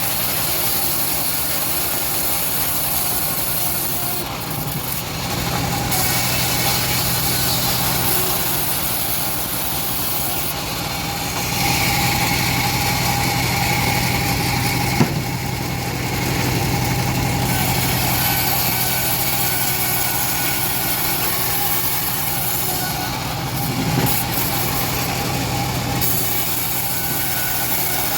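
The engine of a homemade bandsaw mill running steadily, with a brief higher whine about twelve seconds in. There is a single sharp knock about fifteen seconds in and a lighter one near twenty-four seconds.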